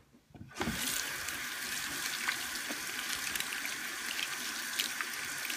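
Tap turned on about half a second in, then water running steadily from the faucet into the sink.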